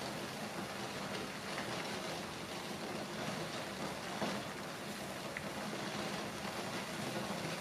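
Steady hiss of a portable cassette gas burner heating water in an aluminium tray of udon noodles as it comes up to a simmer, with a few faint clicks.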